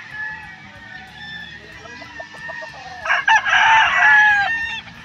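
A gamecock crows once, loudly, starting about three seconds in and lasting under two seconds, with a rough, harsh middle and a falling end. Fainter crowing from other roosters carries in the background before it.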